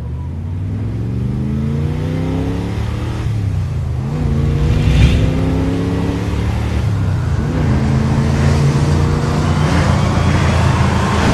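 Logo-intro sound effect: a deep, engine-like rumble whose pitch revs up and levels off several times, with a brief whoosh about five seconds in.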